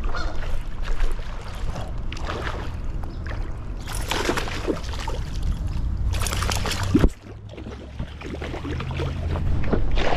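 Water splashing in two bursts as a hooked smallmouth bass thrashes at the surface, over a low rumble of handling noise on the phone's microphone. A knock about seven seconds in, after which the sound goes duller.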